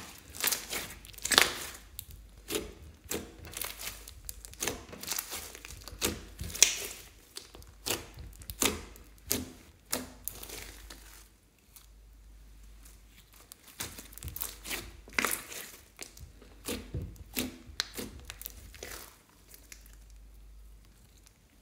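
Hands squishing, poking and stretching glossy blue slime studded with small beads, giving dense sticky crackling and popping. The sound comes in two stretches of several seconds with a short lull between them.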